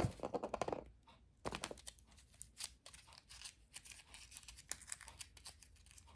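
Small plastic packaging being torn open and crinkled by hand: a run of short crackles and rips, loudest in the first second or so, then scattered lighter crinkles and clicks.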